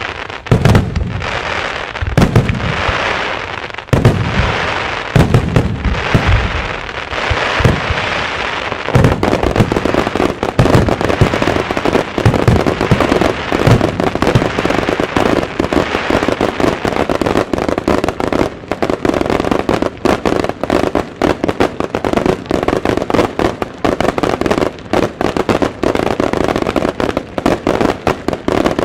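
Starmine fireworks barrage: shells bursting with loud bangs about once a second, with crackle between them. From about nine seconds in, the bursts become a dense, rapid volley that keeps up without a break.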